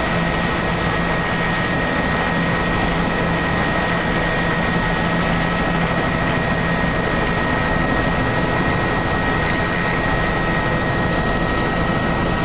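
Steady engine noise with a constant high whine, heard from inside a moving vehicle, even throughout with no change in speed.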